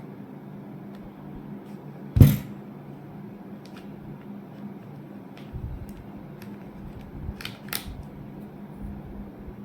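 Handling noises during a keyboard unboxing: one sharp knock about two seconds in, then a few scattered light clicks, two of them close together near the end, over a steady low hum.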